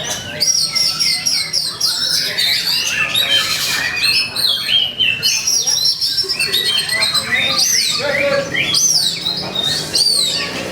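Oriental magpie-robin (kacer) singing a loud, nonstop aggressive song of fast varied whistles, trills, downward sweeps and harsh notes. This is the territorial 'fighting' song that kacer keepers play to provoke another male into singing.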